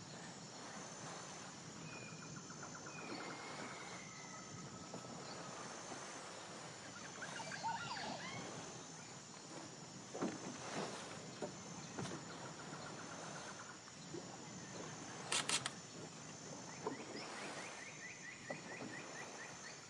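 Outdoor evening nature ambience: a steady faint hiss with scattered bird chirps and short trilling calls, and a few sharp clicks around the middle.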